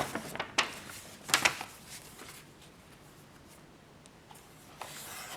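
Paper and cardboard packaging being handled, with a few sharp rustles in the first second and a half, then quieter shuffling that picks up again near the end.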